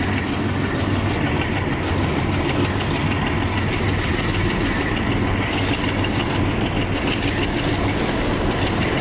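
Freight train of hopper wagons rolling past behind SD40 and U20 diesel locomotives, with a steady clatter of wheels on the rails. The locomotives are drifting with the throttle off as the train starts downhill.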